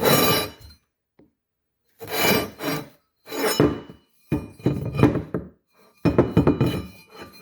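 Metal transmission parts clinking and scraping as they are handled, in five separate bursts of about a second each.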